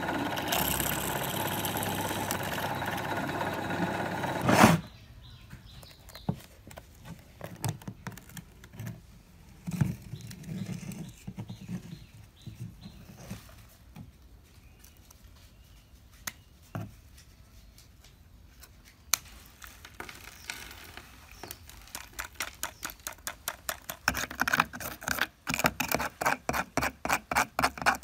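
Electric drill running steadily as a bit drills into the plastic back of an old alarm clock, cutting off with a sharp click about five seconds in. After that come small scattered clicks and scrapes of metal tools working in the dirt-filled clock housing, turning into a quick run of clicks, about four a second, near the end.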